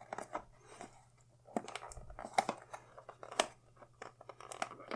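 Handling noise from a SmallRig articulating magic arm: a run of irregular small clicks as it is picked up and moved about.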